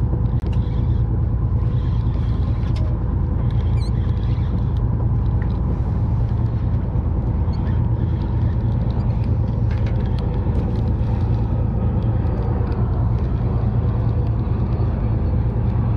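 Boat engine running steadily, a constant low hum with a few fixed tones above it.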